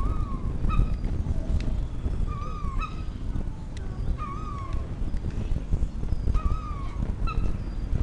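Herring gulls calling in short hooting, owl-like notes, each sliding down in pitch and often followed by a brief second note, repeated about five times. Wind rumbles on the microphone throughout.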